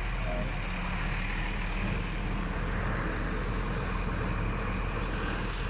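Motor vehicle running, a steady engine hum and road noise with no breaks.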